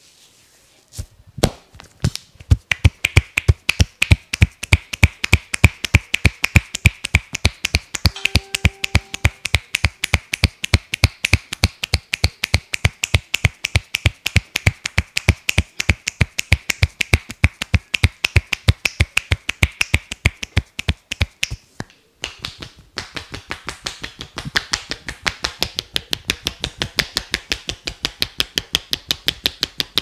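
Percussive head massage by a barber: his hands strike the head in a fast, even run of sharp claps, about five a second. The strikes break off briefly about two-thirds of the way through, then resume a little faster.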